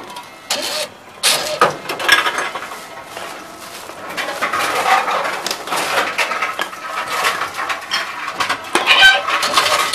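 Aluminium cans clinking and rattling as they are fed into a Tomra T-63 reverse vending machine, with the machine's mechanism running and clicking as it takes them in.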